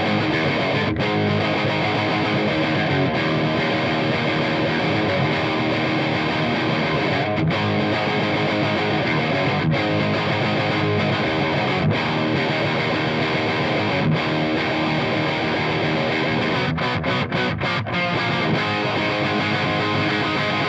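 Distorted electric guitar played through a Marshall JCM800 2203 100-watt tube amp head, riffing and strumming continuously. There are a few brief pauses, and a choppy stop-start passage about three quarters of the way through.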